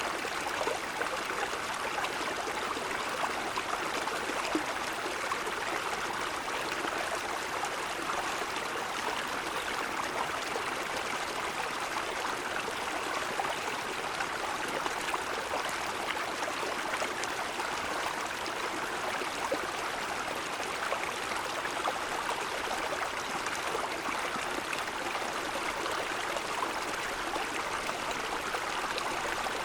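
Mountain stream flowing over stones: a steady, even rush and babble of running water.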